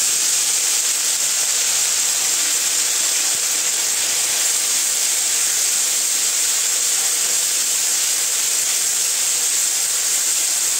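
Wet tomato, ginger and green chili paste sizzling in hot mustard oil in a kadai: a steady hiss.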